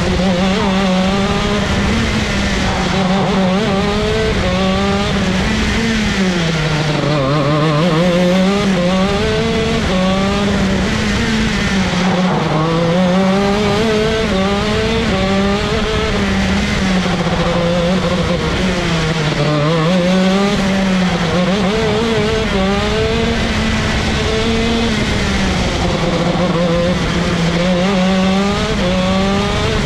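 125cc ROK shifter kart's two-stroke engine at racing speed, pitch climbing and dropping back again and again as it runs up through the gears. Twice the pitch sinks lower, about a quarter and two-thirds of the way through, as the kart slows for a corner.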